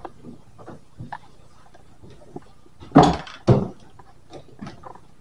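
Scattered light knocks and clicks, with two louder thumps about half a second apart roughly three seconds in.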